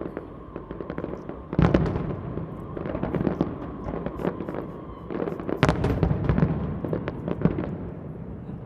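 Aerial fireworks going off in quick succession: rapid crackling and popping throughout, with two loudest bangs about one and a half seconds in and again near six seconds.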